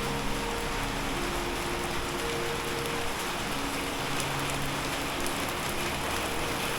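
Steady rain hissing and pattering on the street and hard surfaces. A few faint, held low tones come and go underneath.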